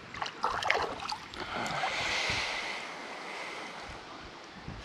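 Water splashing and sloshing as a small hooked panfish is brought in at the surface, with a few short knocks in the first second.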